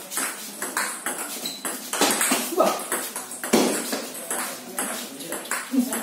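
Table tennis rally: a celluloid ball ticking off paddles and bouncing on the table in a quick run of sharp clicks.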